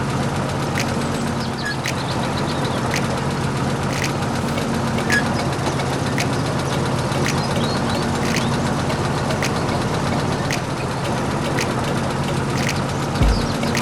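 Small motor of a handmade miniature bulldozer running steadily, with a sharp tick about once a second.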